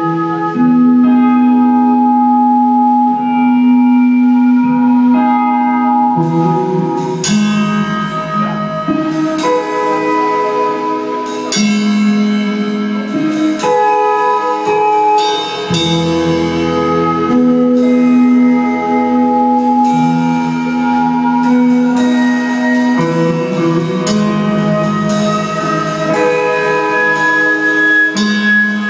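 Live hardcore band playing, with electric guitars ringing out sustained chords. Drums and cymbal crashes come in about seven seconds in and keep going.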